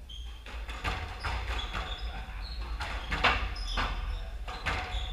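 Squash rally: the rubber ball knocking sharply off rackets and the court walls several times, with footsteps and brief rubber-soled shoe squeaks on the wooden floor.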